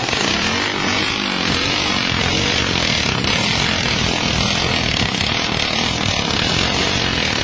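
Motorcycle engine running steadily, its pitch wavering slightly, with a strong hiss over it.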